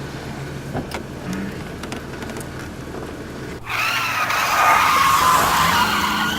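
Car engine running steadily, then about three and a half seconds in the tyres break into a loud, wavering squeal as the car peels off.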